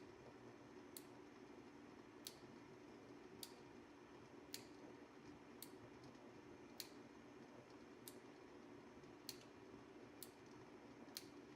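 Near silence: faint, sharp clicks about once a second over a low steady hum.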